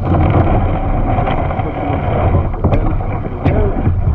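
Choppy river water rushing and splashing around a kayak as it is paddled, with a heavy low rumble and two sharp knocks in the second half.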